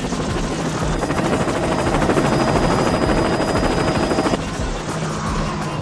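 Loud, rapid chopping flutter, like a helicopter's rotor, that ends abruptly near the end.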